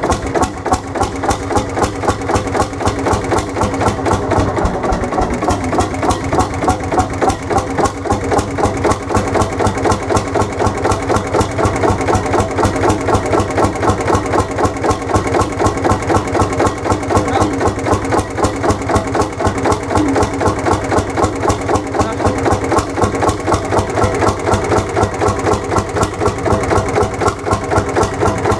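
Lanz Bulldog 35 PK's single-cylinder two-stroke hot-bulb engine idling with an even, rapid beat. It has just been restarted after standing unused for many years.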